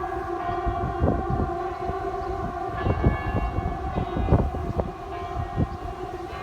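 Civil-defence air-raid sirens sounding a steady held tone during a siren test, several pitches overlapping, over a low irregular rumble.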